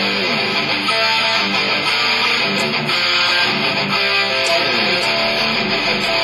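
Amplified electric guitar being played without a break.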